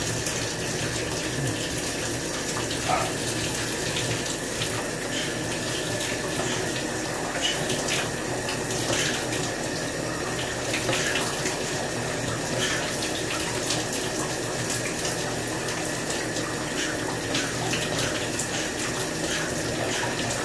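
Shower water running steadily and splashing on a tub floor, with small patters of drops.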